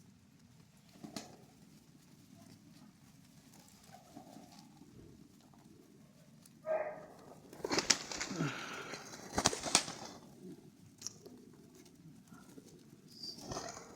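Domestic pigeons cooing, with a louder, noisier stretch of sharp bursts in the middle.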